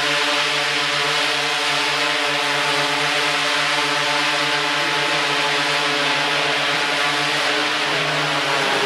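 DJI Inspire quadcopter hovering, its four propellers giving a steady, even buzz. The pitch wavers slightly near the end as the drone shifts position.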